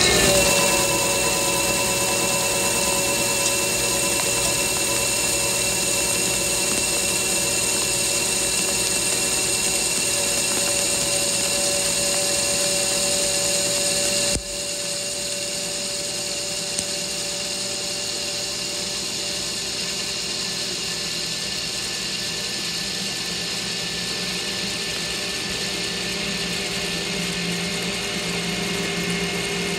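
Metal lathe running while a carbide insert takes a facing cut across the end of a chrome-plated 1045 steel bar: a steady cutting sound with a held whine. About halfway through the sound drops abruptly to a slightly quieter, steady run.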